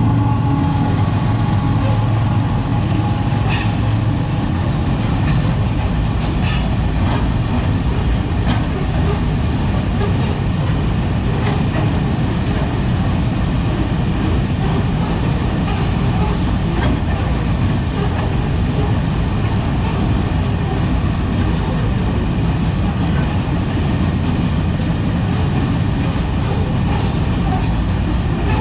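Container freight train rolling past: a steady, loud rumble of wagons on the rails, with scattered clicks and clanks from the wheels and couplings. A steady engine-like tone is heard in the first few seconds, then fades.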